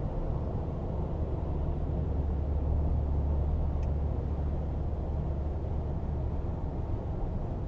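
Steady low road rumble heard inside a car cruising at highway speed, mostly tyre and road noise. It swells a little in the middle.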